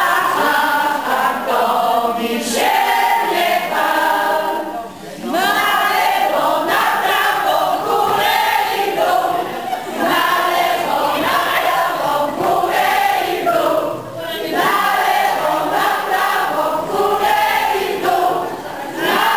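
A group of people singing together in chorus, in phrases separated by short breaks about every four to five seconds.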